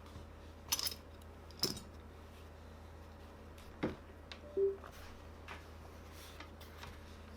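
A few sparse light clicks and knocks from handling the reassembled plastic controller, with a brief short tone about four and a half seconds in.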